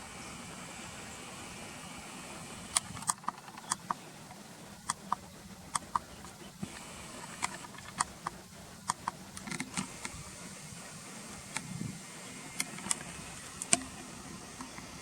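Walk-behind tiller's small engine running steadily, with many sharp metallic clicks and clanks scattered through the middle and later part.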